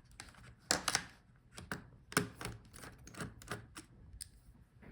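Irregular light clicks and taps of a screwdriver and hard plastic parts as a laptop's battery is unscrewed and lifted out.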